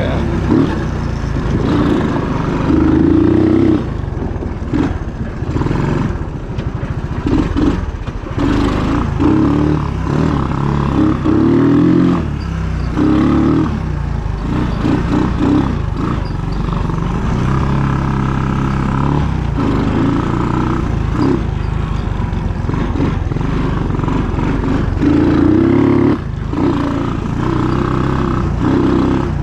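1980 Honda ATC185 three-wheeler's single-cylinder four-stroke engine running on a ride, its pitch rising and falling again and again as the throttle is opened and backed off.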